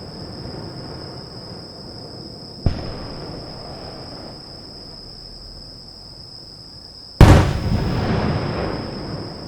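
Aerial firework shells bursting: a smaller sharp bang about two and a half seconds in, then a much louder boom about seven seconds in that rumbles and echoes away over the next two seconds.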